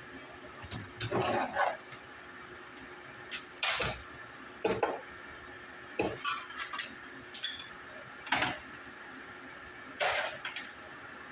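Intermittent clattering and knocks of hard objects being handled, in about six separate short bursts.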